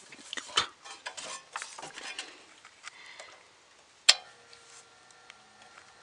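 Clicks and rattles of hands handling a 1988 Pelonis Safe-T-Furnace 1500 W heater while feeling for its control, then one sharp click about four seconds in as it is switched on, after which a faint steady hum sets in.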